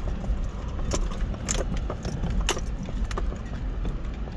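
Car driving slowly over a gravel lot, heard from inside the cabin: a steady low rumble with scattered crunches and pops of gravel under the tyres.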